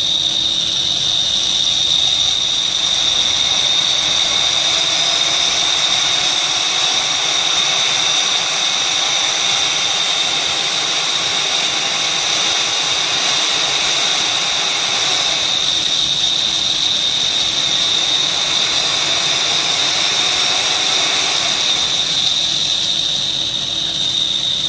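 Brushed DC motor from a Milwaukee M18 wet/dry vacuum spinning free on a bench power supply as the voltage is turned up toward 12 volts: a loud, steady high whine over a rough noise that swells and eases as the voltage is adjusted. It sounds terrible, a sign of worn bearings or possibly a worn bushing at the front of the motor.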